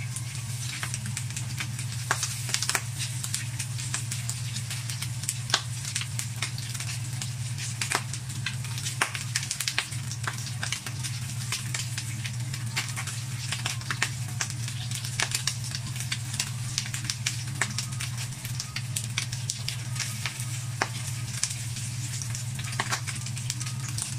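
Pork belly pieces sizzling in a hot nonstick wok as a spatula stirs and scrapes them, with frequent sharp pops and clicks over a steady hiss. A steady low hum runs underneath.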